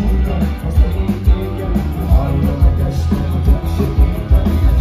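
Live rock band playing, heard from within the crowd: electric guitar and drum kit with a heavy low end and a steady beat.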